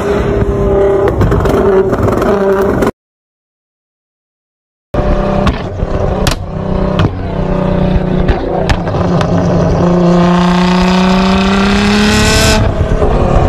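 Nissan GT-R (R35) twin-turbo V6 running through a loud aftermarket exhaust, broken by about two seconds of dead silence. When the sound returns, the exhaust pops and cracks sharply several times as it throws flames, then the engine revs up with a steadily rising pitch that cuts off near the end.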